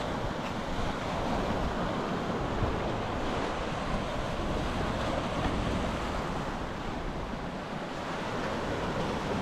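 Sea waves washing onto the shore in a steady rush, with wind buffeting the microphone.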